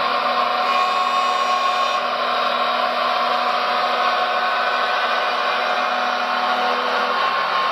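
RC hydraulic excavator's electric pump whining steadily while the arm and bucket are lowered, a motor-driven whir with several steady tones.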